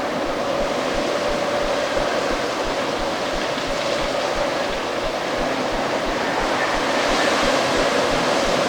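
Strong autumn storm wind blowing in a steady rush, with a faint thin whistling tone in it; it swells slightly near the end.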